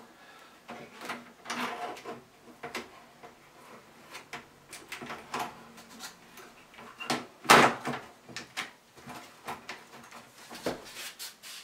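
Scattered plastic clicks and knocks as the Acorn A3000's case and keyboard are handled and set back into place, with one louder knock past the middle.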